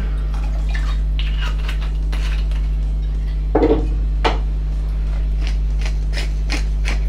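Hand-held pepper mill grinding peppercorns: a run of short crunching clicks about twice a second, with one louder knock a little past halfway, over a steady low hum.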